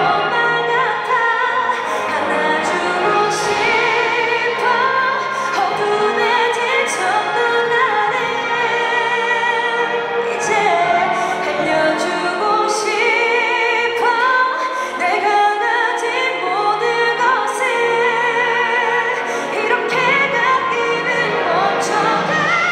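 A woman singing a slow ballad live, with a full symphony orchestra accompanying her. Her held notes waver with vibrato over sustained strings.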